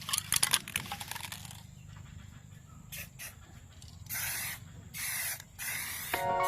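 Aerosol spray paint can: a quick run of rattling clicks, then four short bursts of spray, each about half a second long. Music comes in near the end.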